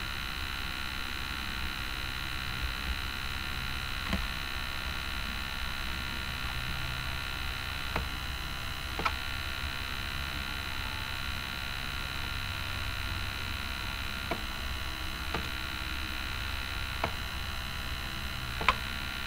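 Steady electrical hum and hiss of a desktop microphone's noise floor, with about seven brief sharp clicks spread through it, the loudest near the end.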